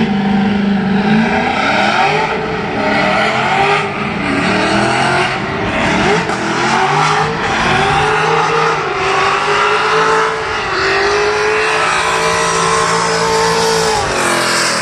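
BMW E36 M3 drift car's engine, very loud, revving up and falling back again and again through a drift, with tyres screeching underneath. The revs drop sharply near the end.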